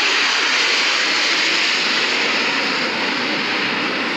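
Loud, steady roar of USAF Thunderbirds F-16 jet fighters flying past, easing off slightly toward the end.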